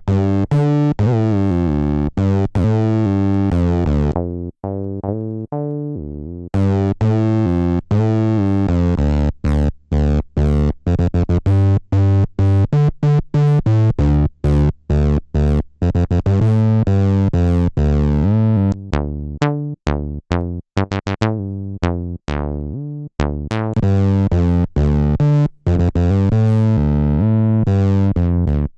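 Behringer TD-3 analog bass synthesizer, a TB-303 clone, playing a sequenced acid bassline of short, repeating notes. Its resonant filter cutoff is swept: the tone dulls a few seconds in, opens bright again, and closes once more past the middle before reopening near the end.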